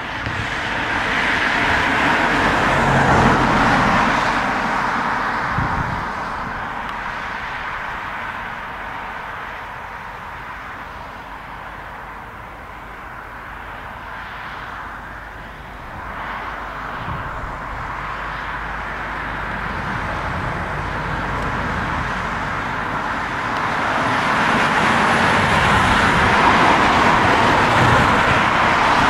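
Airbus A340-300's four CFM56 turbofan engines running as the airliner rolls along the runway, a steady jet roar that swells about three seconds in, fades, then grows loud again over the last few seconds.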